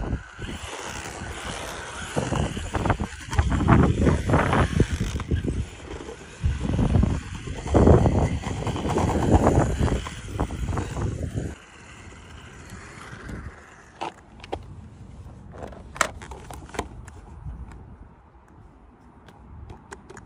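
Wind buffeting the microphone in gusts, loudest through the middle, then dying down. Near the end it is quieter, with a few sharp clicks and knocks.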